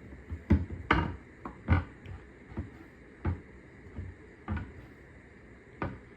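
A string of short, irregular knocks and clunks, about ten over six seconds, the loudest in the first two seconds, as of wooden cabinet parts and tools being handled.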